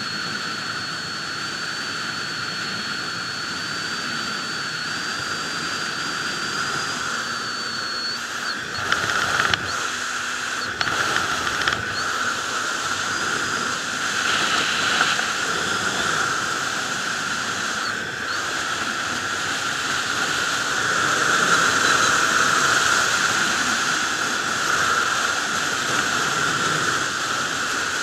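Sport motorcycle riding at speed: a steady rush of wind over the microphone, with a thin high whine for the first eight seconds or so. A few short sharp knocks of buffeting come around ten seconds in.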